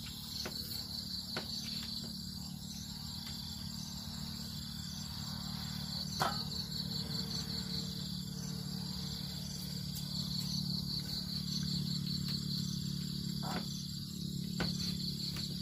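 Insects chirping in a steady, finely pulsing high trill, with a low steady hum beneath and a few light clicks, the sharpest about six seconds in.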